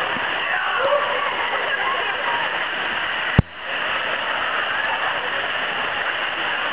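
Artificial waterfall pouring steadily into a pool, a constant splashing rush, with faint distant voices mixed in. A sharp click a little before halfway, where the sound briefly drops out and fades back in.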